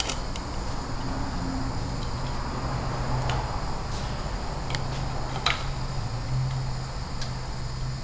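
Steady low hum, with a few light clicks and knocks from a wooden board and tools being handled against a brick wall.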